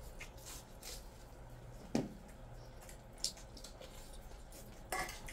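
Hand-eating sounds: rice and curry squishing between fingers, with wet chewing and lip smacks, soft and intermittent. A sharper click comes about two seconds in, and a brief louder smack near the end.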